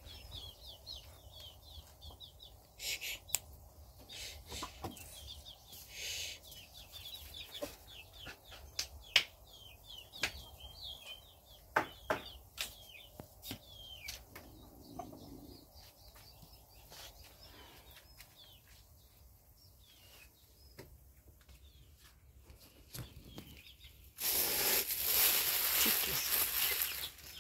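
Birds chirping repeatedly in short high calls, with a few scattered clicks and knocks. Near the end comes about three seconds of loud wing flapping from chickens.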